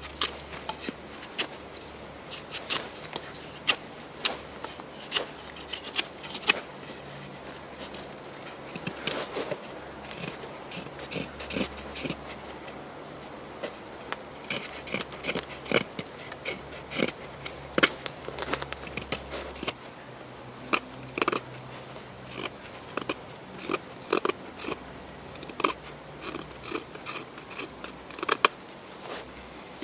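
Puma White Hunter knife carving a wooden stick: irregular sharp crunching cuts and scrapes as the blade takes shavings off, coming singly and in quick clusters of a few a second.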